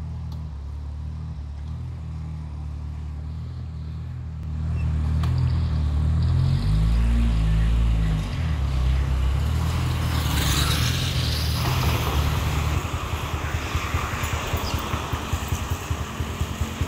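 City street traffic: cars and motorcycles running along the road, with a vehicle passing close about ten seconds in. A heavy, uneven low rumble from wind on the microphone sits under it, buffeting in rapid gusts near the end.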